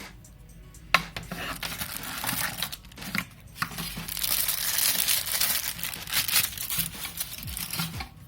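Plastic packaging crinkling as it is handled and pulled open, with a sharp click about a second in and the crackling loudest around the middle.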